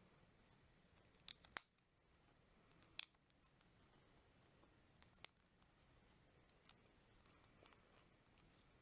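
Plastic Lego bricks clicking as they are handled and snapped together: a quick double click about a second and a half in, single sharp clicks about three and five seconds in, and a few faint ticks after that.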